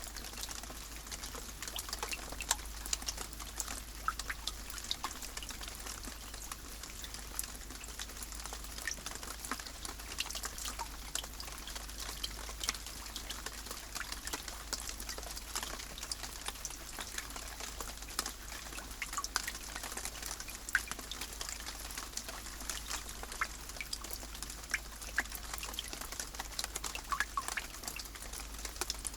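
Steady rain: an even hiss with many small drop ticks scattered irregularly through it.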